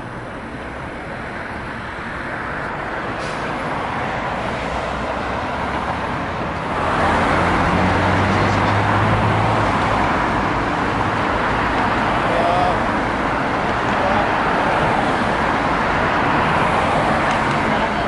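Road traffic passing: a steady rush of tyre noise that builds gradually and gets louder about seven seconds in, when a vehicle's low engine hum joins for a few seconds.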